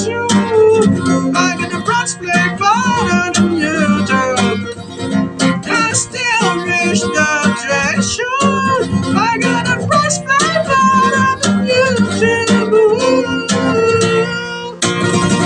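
Music: an instrumental passage led by acoustic guitar with strumming, a melody line moving over it.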